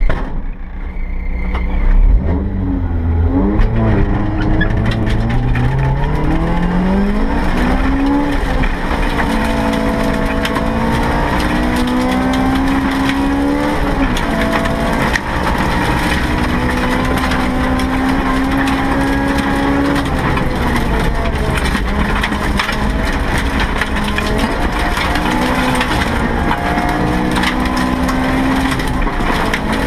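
Interior sound of a Honda EF Civic rally car launching hard about two seconds in and accelerating up a gravel road. The engine revs up through the gears, its pitch climbing and dropping back at each shift, then rising and falling through the corners. Gravel crackles against the underbody throughout.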